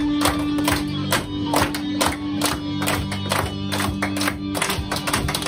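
A group of children clapping steadily along to music, with a long held note running under the claps.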